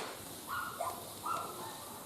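Several short animal calls, each holding a steady pitch, beginning about half a second in.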